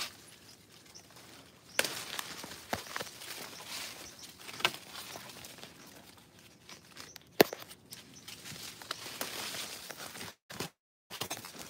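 Rustling of leaves and twigs as a hand reaches into a tree's branches, with scattered sharp clicks and knocks from the phone being handled close to its microphone. The sound cuts out completely for a moment near the end.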